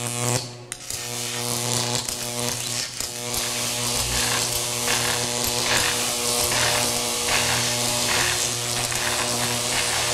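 Tesla coil discharge arcing between hand-held glass bulbs: a steady electric buzz with a hissing crackle, getting louder over the first few seconds and then holding.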